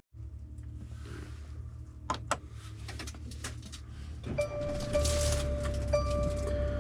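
Van engine idling, a steady low hum heard from inside the cab, with two sharp clicks about two seconds in. About four seconds in, a sustained steady tone comes in over it, broken briefly about once a second.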